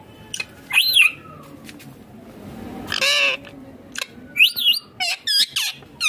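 Indian ringneck parakeets giving short, shrill calls that sweep up and down in pitch, one call a little under a second in, a longer one about three seconds in, then a quick run of several calls near the end.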